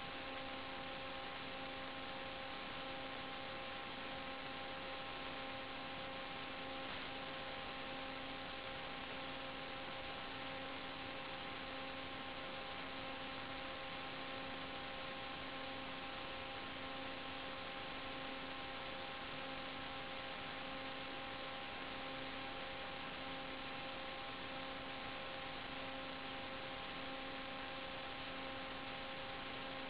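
Steady electrical hum, a stack of fixed tones that never changes in pitch, over a constant hiss: noise on the analog FPV video link's audio channel.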